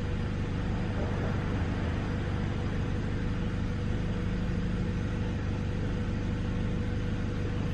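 A steady low mechanical hum with a few fixed tones, holding an even level throughout, as from a motor or engine running.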